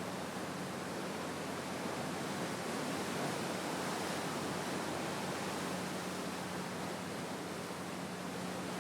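Sea surf washing on the shore, a steady even rush of waves without distinct crashes.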